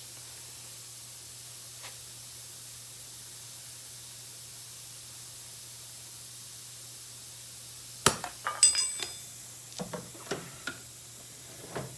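Metal objects clinking and knocking: one sharp, loud metallic clink with a brief ring about eight seconds in, then several lighter clinks and knocks, over a steady low hum.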